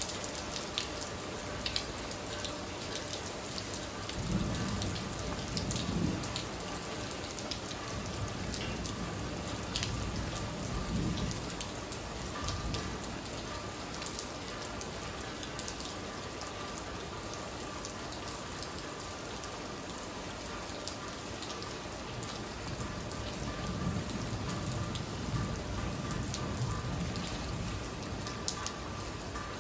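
Steady rain falling on a wet tiled patio, with sharp ticks of single drops landing close by. Low rumbles of distant thunder swell and fade a few seconds in, again around the middle, and near the end.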